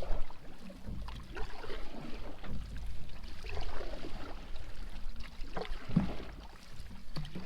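Canoe being paddled: water splashing and dripping off the paddle and lapping against the hull in irregular strokes, over a steady low rumble.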